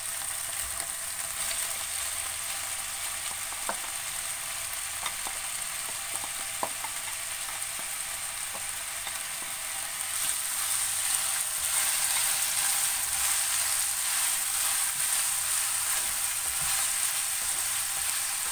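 Chopped chicken, onion and garlic sizzling in oil in a non-stick frying pan, with a few light clicks in the first half. About ten seconds in, as sliced sausages go in and a spatula stirs the pan, the frying gets louder.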